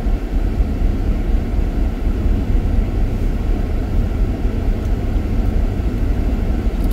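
Steady rumble of tyres and road noise inside a car's cabin while driving slowly on a snow-covered road, with the heater blower running.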